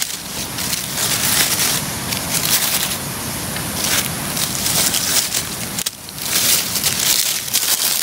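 Dry oak and bay leaves crunching and crackling as they are handled and crumpled by hand to use as fire-lighting tinder. The rustling goes on with a brief drop about six seconds in.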